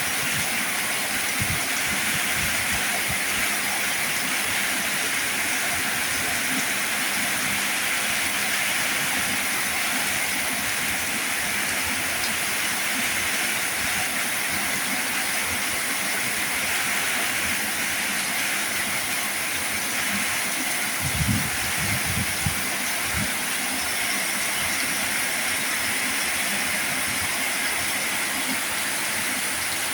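Heavy rain falling steadily, an even hiss of water with no letup. A few dull low thuds come about two-thirds of the way through.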